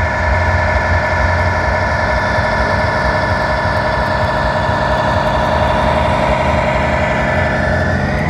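Simulated big-rig diesel engine sound from a radio-controlled model semi truck's sound module, running steadily, with a rising tone near the end.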